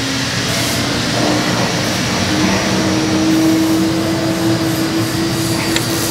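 Steady mechanical drone of a running motor, its hum rising slightly in pitch, with one sharp click near the end.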